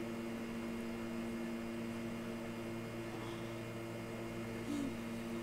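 Steady low hum with several overtones over a faint hiss: room noise from a running appliance.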